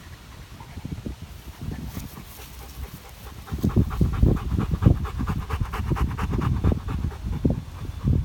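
Dogo Argentino panting with its mouth open close to the microphone, a quick rhythmic huffing. It is soft at first and grows much louder about three and a half seconds in.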